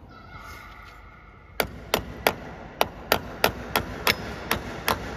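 Small hammer striking, about ten sharp blows at roughly three a second starting about a second and a half in, fixing a plastic electrical cutout box to a wall.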